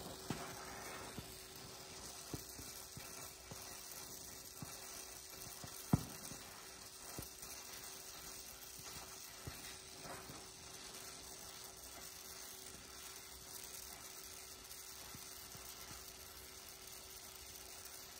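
Gas brazing torch flame hissing steadily as flux-coated brazing rod is fed onto a chassis bracket, with scattered crackles and one sharp pop about six seconds in.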